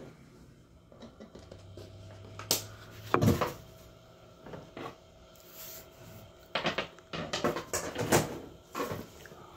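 Kitchen clatter: a series of knocks and clunks of things being handled and set down at the counter, the loudest about three seconds in and a quicker run of knocks between about six and a half and eight seconds.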